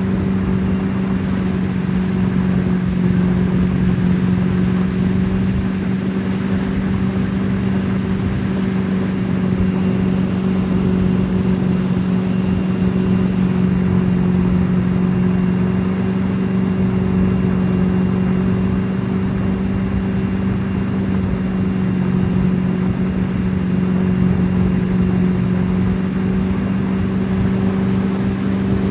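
Motorboat engine running at a steady speed while towing a wakeboarder: an unchanging drone over a constant rush of noise.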